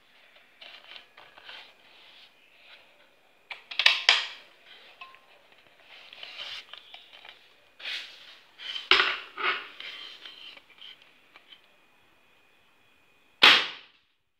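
A homemade PCP air rifle being handled, with clicks and metallic clacks from the action and stock, then a single sharp shot near the end.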